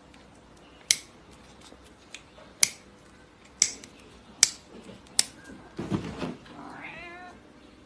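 An aerosol spray can is pressed in five short, sharp puffs about a second apart, then a cat gives one drawn-out meow near the end.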